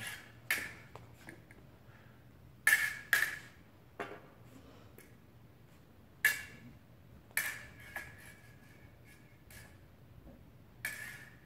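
Fencing practice: a string of short, sharp clinks and taps, some in quick pairs, each with a brief echo, from blades meeting and feet striking the hall floor.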